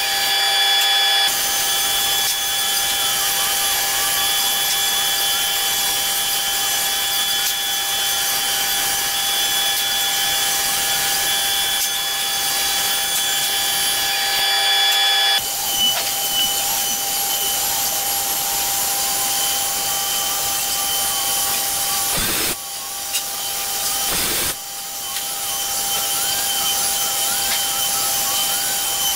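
CNC router spindle running at a steady high whine while its bit cuts into a wood panel, with a wavering tone that shifts in pitch as the machine moves. The whine's pitch changes abruptly about halfway through, and the sound briefly drops twice near the end.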